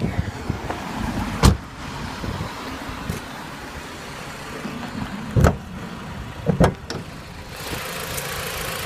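Jeep Compass engine idling quietly, with no whine now that the faulty alternator has been replaced, broken by three knocks about 1.5, 5.5 and 6.5 seconds in. Near the end the steady running sound gets louder and closer.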